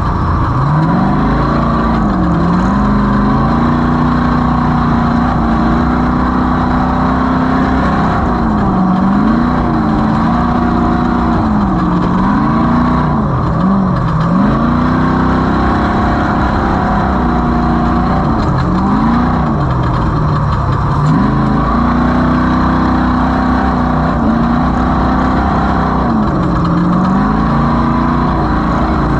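Off-road race vehicle's engine under load, its note climbing and dropping every few seconds as the throttle is worked, over a steady rush of noise.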